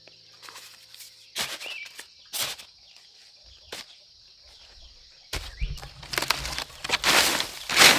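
Dry cornstalk leaves and husks rustling and crackling, as during hand-picking of corn: a few separate snaps at first, then dense, louder rustling from about five seconds in.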